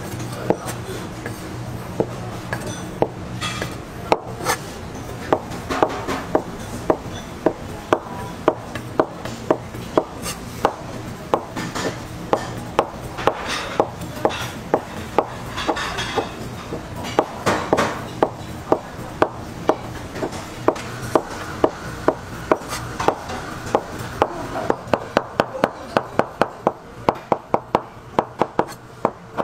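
A knife chopping blocks of yellow jelly into strips, its blade knocking on the cutting board about twice a second, then speeding up to rapid chopping near the end.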